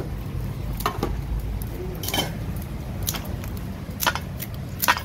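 Kitchen utensils and dishes clinking, about five short sharp clinks spread over a few seconds, over a steady low rumble.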